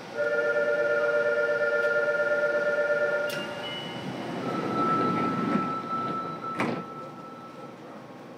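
Inside a Fukuoka City Subway 2000 series car: a set of steady tones starts suddenly and holds for about three seconds. A sharp knock follows, then another single steady higher tone, with a second knock near the end.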